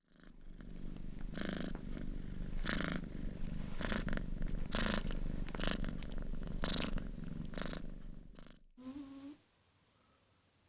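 A sleeping cat's snoring: a low steady rumble with a raspy breath about once a second. Near the end comes a short, slightly rising whine.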